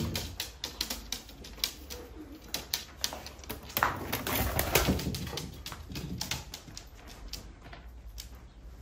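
Tumbler pigeons moving about a loft: an irregular run of light clicks and taps from the birds on the wooden perch boards, with a louder rustle about four to five seconds in.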